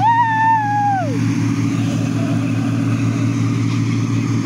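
Steady low engine drone. In the first second a single high-pitched call is held and then falls away at the end.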